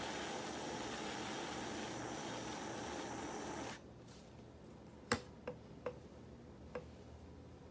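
A butane torch hissing steadily as it heats a nectar collector's tip, then shut off abruptly about halfway through. Four sharp clicks follow, the first the loudest.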